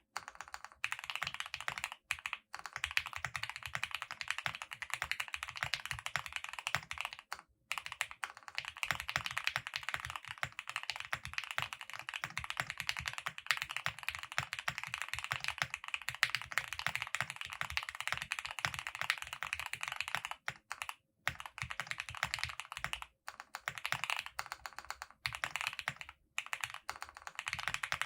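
Steady typing on a QK65 mechanical keyboard with lubed Gateron Oil King linear switches mounted on an aluminium plate: a dense, continuous run of keystrokes, broken by a few brief pauses.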